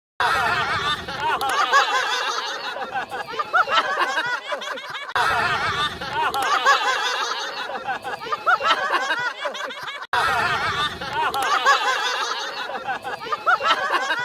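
Many voices at once cheering and laughing, in three matching stretches of about five seconds, each starting suddenly loud and tailing off before it cuts off.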